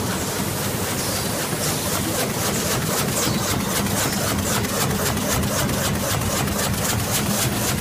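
High-speed plastic bag making machine running: a steady mechanical hum with a fast, even clicking of its repeating machine cycle, which becomes clearer after a couple of seconds.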